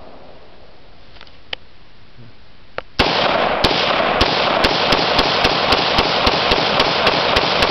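AR-15-style semi-automatic rifle firing a rapid string of about fifteen shots, starting about three seconds in and quickening to about four shots a second, with a loud rushing noise between the shots.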